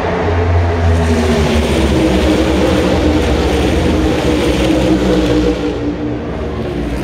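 A tightly bunched pack of NASCAR Cup stock cars passing, their pushrod V8 engines blending into one loud, sustained roar of many overlapping tones. It eases off somewhat about six seconds in as the pack goes by.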